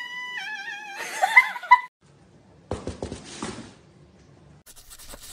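Domestic cat meowing: a drawn-out, level meow, then a shorter wavering one, in the first two seconds. About a second later comes a brief burst of noise, and faint clicks near the end.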